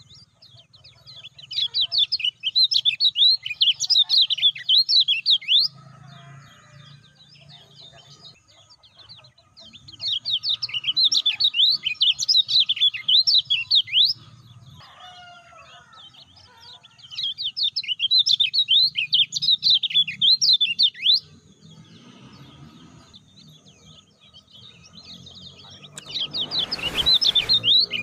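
Lemon-bellied white-eye (kecial kuning) singing: four runs of rapid, high chirping song, each a few seconds long with short pauses between. A brief rush of noise comes just before the end.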